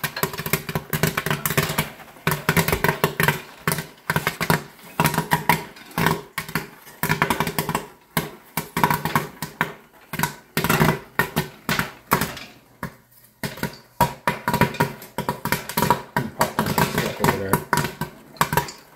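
Popcorn kernels popping fast and irregularly in the kettle of a Great Northern GNP-800 popcorn machine, over the steady hum of the kettle's stirrer motor. The batch is nearly done: the popping has begun to slow and the kettle heat has just been switched off.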